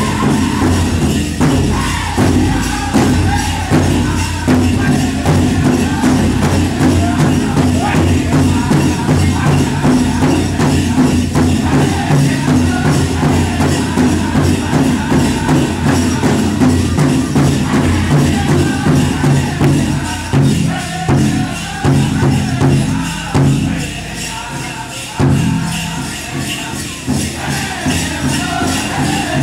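Powwow drum group singing to a steady drumbeat, with many dancers' leg bells jingling along.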